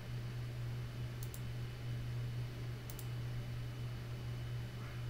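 Two sharp computer mouse clicks, about a second and three seconds in, over a steady low electrical hum.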